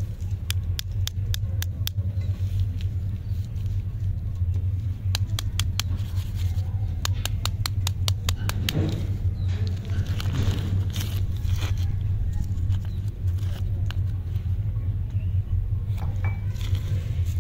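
Plastic lollipop wrappers crinkling and rustling as they are handled, with runs of sharp little clicks in the first half and louder rustling in the middle, over a steady low rumble.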